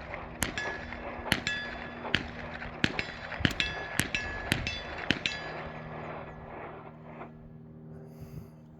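An AR-15 rifle fired about nine times in steady semi-automatic succession, roughly a shot every two-thirds of a second, each report followed by a short ringing tail. The firing stops a little past halfway through.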